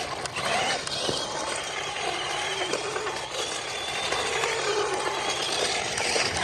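Radio-controlled monster truck's motor running with a faint rising and falling whine as it spins donuts, its wheels churning through mud.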